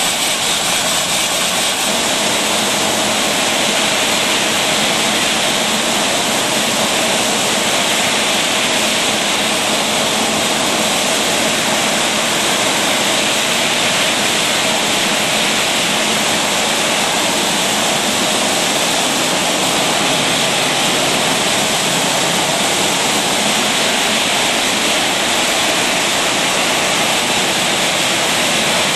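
Rotary bottle-filling machine running: a loud, steady, even rushing noise with no beat or change.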